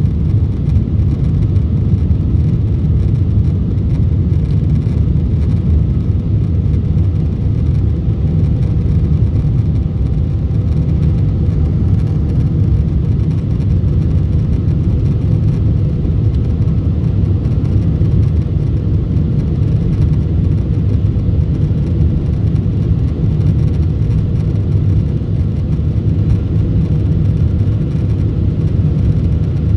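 Boeing 747-8 cabin noise in flight, heard at a window seat: a steady, really loud low roar that does not change.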